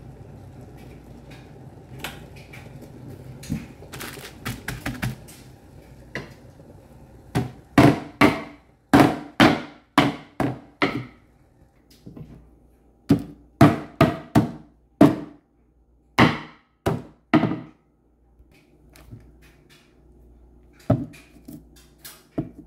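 Fresh ginger in a plastic bag being pounded on a wooden cutting board: two runs of sharp thuds, about fifteen blows in all, with a short pause between the runs.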